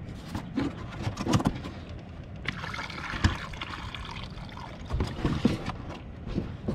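Water splashing and sloshing, with scattered knocks and clatters.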